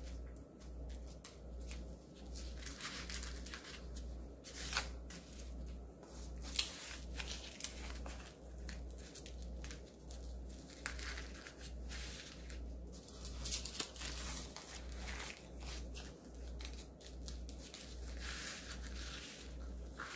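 Sheets of dried laver (gim) crinkling and rustling as gloved hands roll rice up in them, with irregular small crackles and rubbing sounds.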